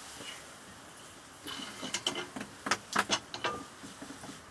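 Metal pots and utensils being handled: a short scrape, then a run of sharp clinks and knocks, after a quiet first second or so.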